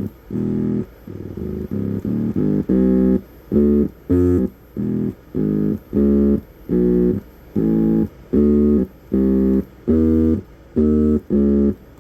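Function generator played as a run of short electronic tones, about two a second with a quicker flurry near the start, each button combination giving a different tuned, melodic pitch.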